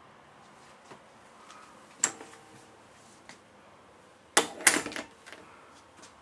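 Bathroom door being handled: a sharp metallic click with a short ring about two seconds in, then a quick cluster of loud clacks and knocks from the knob and latch a little past halfway.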